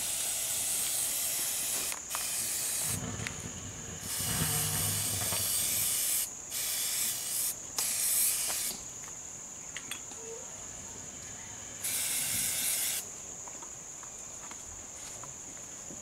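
Spray hissing in about six bursts, each half a second to two seconds long, starting and stopping sharply, the kind of hiss a wound spray makes when it is applied in short bursts.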